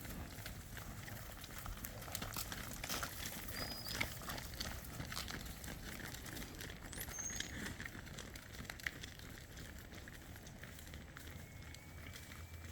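A herd of cows and calves walking past, with irregular hoof steps and rustling, and a few short high bird chirps.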